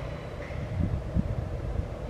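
Low, steady rumble of a distant metro train, with wind buffeting the microphone twice around the middle.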